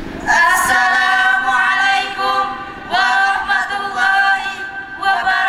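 Two female voices and one male voice singing together into handheld microphones over a PA, with no instruments, in long held phrases that break briefly about three seconds in and again near the end.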